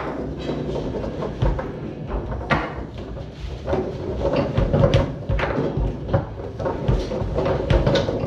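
Foosball in play on a Tornado table: a rapid, irregular run of sharp knocks as the ball is struck by the players and cracks off the table walls, with the rods clacking as they slide and spin.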